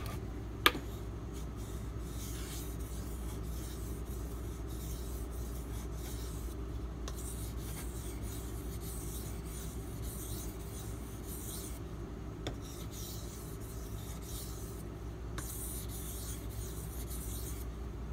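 Knife blade being drawn back and forth across a water stone, a steady scraping rasp that swells and fades with each run of strokes, with one sharp click under a second in. These are countdown strokes on alternating sides, done to minimise or remove the burr on the edge.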